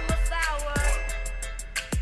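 Background music with a beat: deep kick drums that fall in pitch, a low bass underneath and quick hi-hat ticks over steady synth notes.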